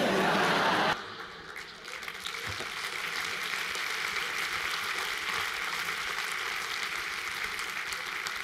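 Audience applauding: a loud burst in the first second, then steady clapping.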